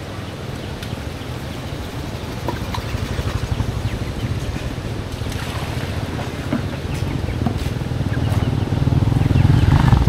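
A steady low rumble that grows louder near the end, with a few light clinks of metal pots and plastic basins being handled during washing-up.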